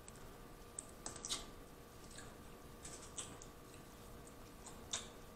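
Faint, scattered small clicks and crackles of boiled crawfish being picked apart and eaten, shell pieces snapping and mouth clicks, with a sharper click about five seconds in.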